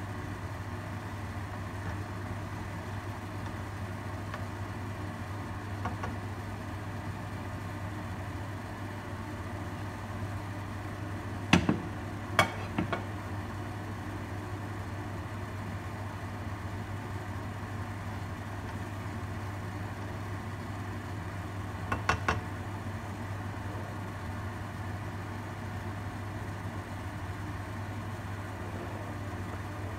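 Egg and kimchi frying in a nonstick wok on a gas burner under a steady low kitchen hum. Two sharp knocks come a little under halfway through, and a short cluster of knocks about three quarters of the way in.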